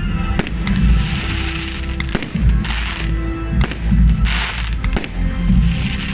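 Aerial fireworks shells bursting with about four sharp bangs, between them showers of crackling stars, over music playing throughout.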